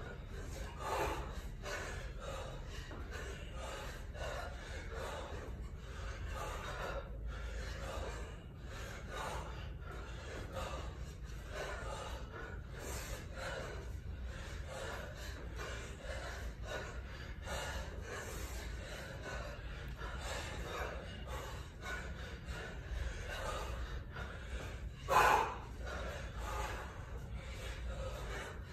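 A kettlebell lifter breathing hard and rhythmically through repeated one-arm cleans with a 36 kg kettlebell, in short forceful exhales and gasps. One louder gasp comes near the end.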